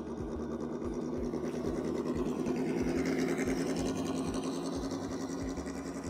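Electric motor and gear drivetrain of an Axial SCX10 RC rock crawler whining steadily as it crawls, swelling to its loudest near the middle and fading as the truck pulls away.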